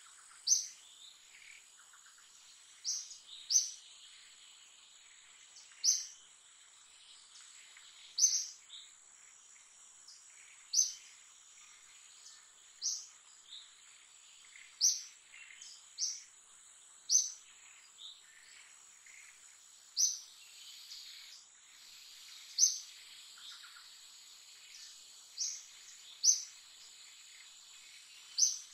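Forest ambience: short, sharp, high-pitched chirps come at irregular intervals of one to three seconds over a faint, steady high tone.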